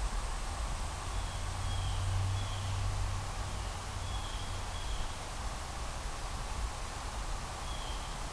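Woodland ambience: a steady insect drone with a few faint, short bird chirps scattered through it, over a low rumble.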